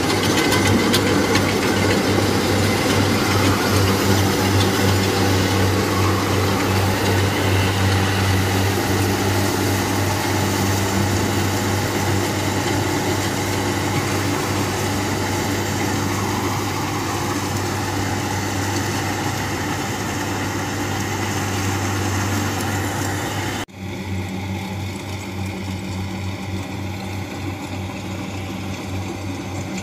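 Kubota DC-70 combine harvester's diesel engine running steadily under load with a low hum as it drives into the rice and cuts. About 24 seconds in the sound drops suddenly to a quieter, more distant run of the same kind of machine.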